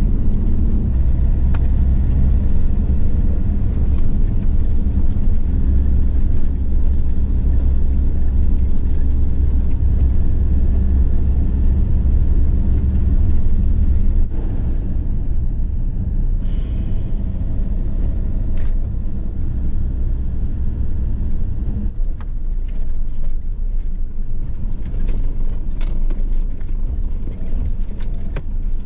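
A Fiat Ducato camper van on the move: a steady engine-and-road drone. Its note drops about halfway through and changes again a few seconds later, and scattered light clicks come in over the last several seconds.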